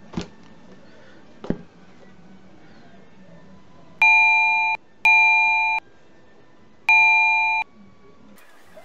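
Two knocks from the camera being handled, then three loud electronic beeps, each under a second long and fading slightly, the last after a longer gap.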